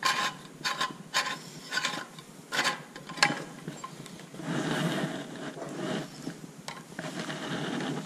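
Stainless steel tap box and brass ball valve being handled and threaded on by hand: a string of sharp metallic clicks and knocks, with a stretch of rubbing and scraping about halfway through.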